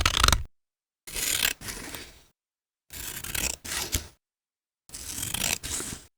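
Scissors cutting paper in separate strokes. One cut ends about half a second in, then three more follow roughly every two seconds, each about a second long, with silence between.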